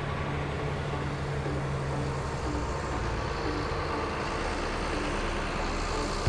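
Heavy truck engine running steadily, with a low hum that drops away about two and a half seconds in.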